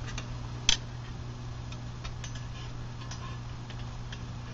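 Scattered light clicks and ticks at an uneven pace, with one sharper click under a second in, over a steady low hum.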